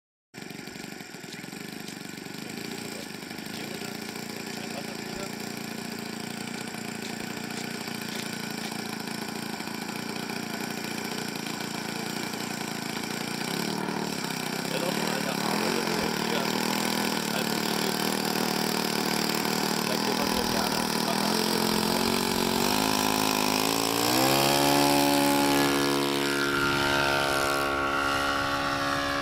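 Radio-controlled model aircraft's small piston engine running, growing steadily louder; about 25 seconds in its pitch climbs sharply as the engine revs up or the plane passes.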